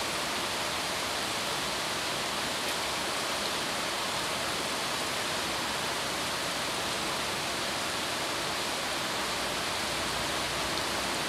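Steady, even background hiss with no other sounds: the room and recording noise under a pause in speech.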